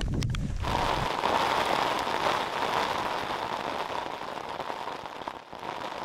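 Wind buffeting the microphone, then about half a second in a steady hiss of heavy rain takes over and keeps on.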